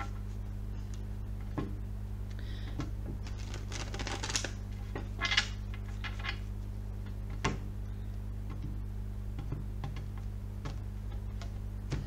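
Tarot cards being shuffled by hand: irregular clicks and taps of the cards, over a steady low hum.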